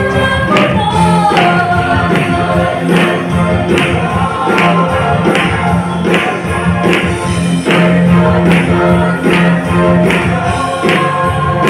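Gospel choir of mainly female voices singing through microphones over accompaniment with a steady beat, about two strikes a second.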